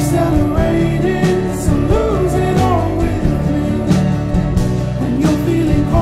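Background music: a song with a singing voice over instruments and a steady beat.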